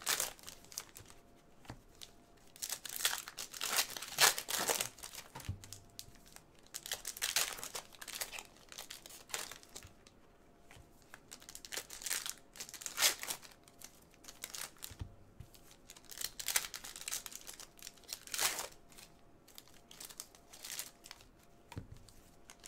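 Foil trading-card pack wrappers being torn open and crinkled, in irregular bursts.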